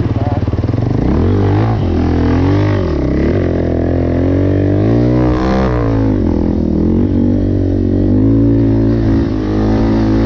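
KTM 450 EXC-R single-cylinder four-stroke dirt bike engine ridden under load, its pitch rising and falling repeatedly with throttle and gear changes. A brief hiss about halfway through.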